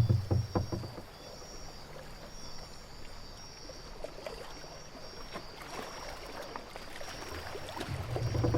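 Tropical sea ambience sound effects: water sloshing and lapping as if against a boat, heavier with low knocks near the start and swelling again near the end. A high, thin trill repeats in short pulses throughout.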